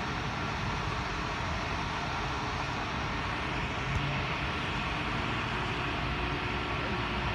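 Steady rushing vehicle noise with a low rumble underneath, and one brief knock about four seconds in.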